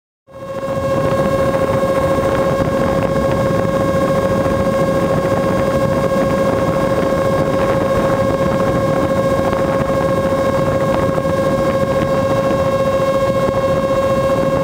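An RC blimp's electric motors and propellers running steadily in fast flight, heard through the onboard camera: one constant whine over a dense, even hiss. It starts abruptly just after the beginning and does not change in pitch.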